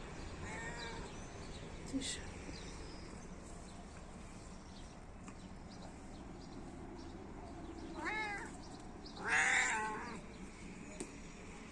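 Domestic cat meowing: a short meow near the start, then two more about eight and nine seconds in, the last one the loudest.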